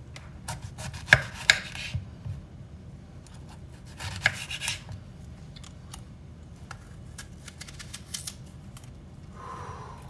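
Kitchen knife cutting through a raw red apple on a bamboo cutting board: crisp crunching cuts in three short bursts.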